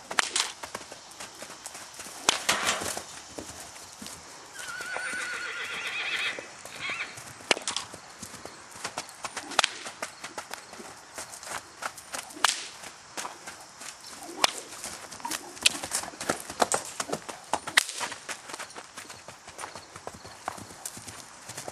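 Horse hooves clip-clopping in an uneven series of sharp knocks. About five seconds in, a horse whinnies once, a wavering high call lasting about two seconds.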